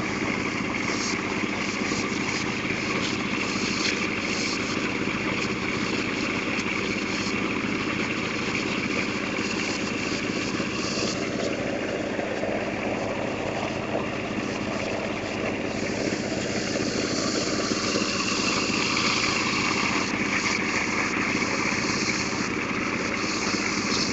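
Water-well drilling rig running steadily while it drills: a continuous machine drone from the drill drive and its pump unit.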